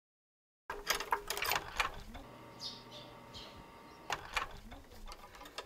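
A moment of total silence, then faint ambience of scattered clicks and ticks. Two short high chirps come about two and three seconds in.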